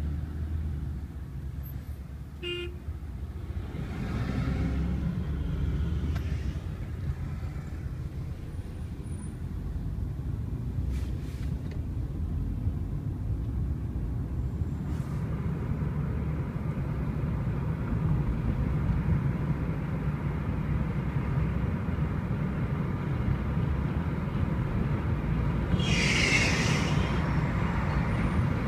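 Steady low rumble of engine and road, heard from inside a car moving through city traffic. A vehicle horn toots briefly near the end.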